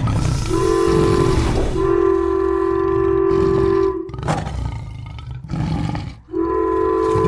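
Train horn sounding in steady blasts, a short one and then one of about two seconds, with a tiger roar between about four and six seconds in, and the horn starting again near the end.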